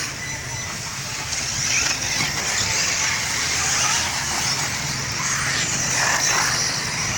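Electric 4WD off-road RC buggies racing: a steady high whine from their motors over a hiss of tyres on the dirt track.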